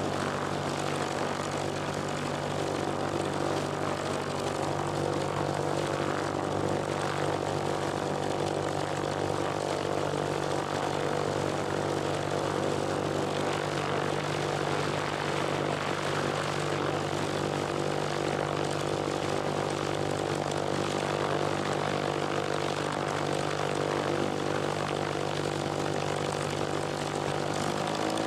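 Piper Turbo Saratoga's turbocharged six-cylinder piston engine and propeller running with a steady drone that holds one pitch.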